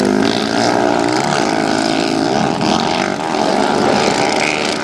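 Modified racing quads (ATVs) running hard, their engines revving loudly, the pitch climbing and then rising and falling with the throttle.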